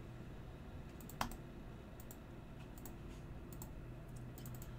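Faint clicks of a computer mouse and keyboard, a scattered handful with one sharper click about a second in, over a low steady hum.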